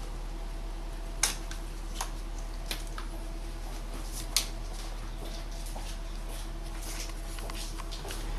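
A few sharp clicks and knocks of hands handling parts at the engine, the loudest about a second in and another in the middle, over a steady low hum.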